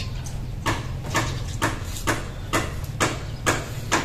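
Sharp clicks or knocks repeating about twice a second, unevenly spaced, over a low steady hum.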